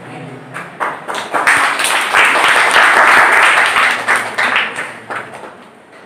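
Audience applauding: the clapping builds up about half a second in, is loudest in the middle and dies away about five seconds in.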